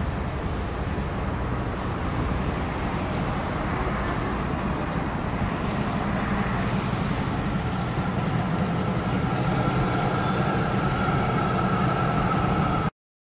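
Engine and road noise of a moving double-decker sightseeing bus heard from its open top deck, with a steady low rumble. A faint whine comes in about halfway and holds, and the sound cuts off suddenly near the end.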